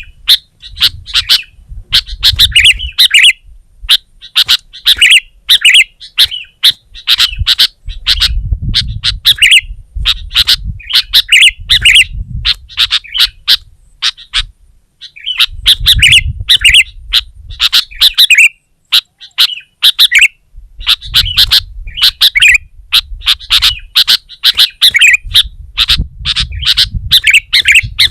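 Sooty-headed bulbuls calling loudly and without let-up: quick runs of sharp chirping notes broken by short pauses, the persistent, agitated song used to lure other bulbuls. A low rumble sits under some of the runs.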